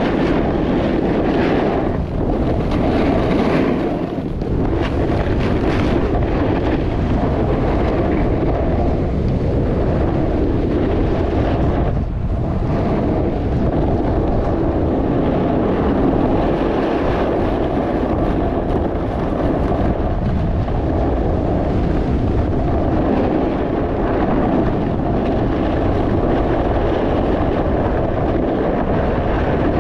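Steady wind rushing over the microphone while snowboarding downhill, mixed with the snowboard sliding and scraping over the snow, swelling and easing through the turns.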